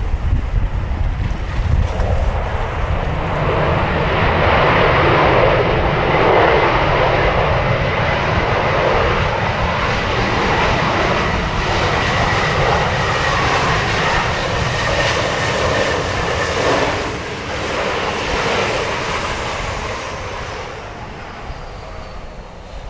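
Jet airliner passing, its engine roar swelling over a few seconds and then fading, with a thin whine that slowly falls in pitch. Typhoon wind buffets the microphone throughout.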